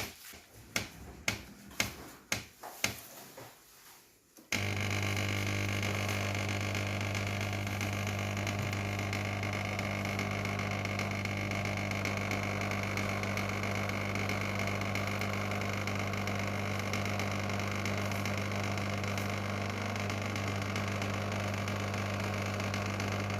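A few clicks and knocks, then about four and a half seconds in a Sage espresso machine's vibratory pump starts with a steady, loud buzz that stops abruptly at the end. This buzz is the machine's fault noise, which the owner traced to a scale-blocked pipe rather than to the pump.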